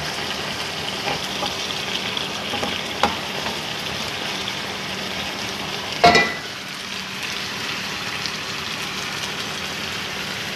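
Chicken adobo sizzling in a frying pan as its sauce cooks down and thickens, stirred with a wooden spatula, with a few light clicks. A sharp knock about six seconds in.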